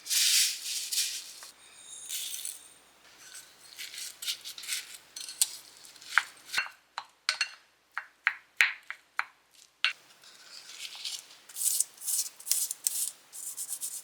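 Food-preparation handling sounds: crinkly rustling at the start and again near the end, with a run of short, sharp clicks and taps in the middle.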